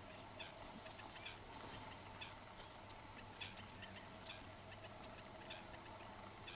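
Faint, scattered short high calls from a flock of wading birds, several a second at times, over a steady low hum.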